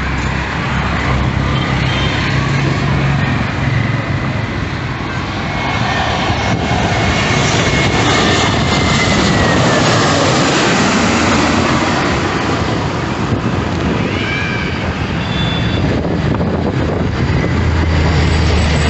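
Airbus A320neo jet airliner passing, its engines a loud, steady rush with a high whine that falls in pitch as it goes by.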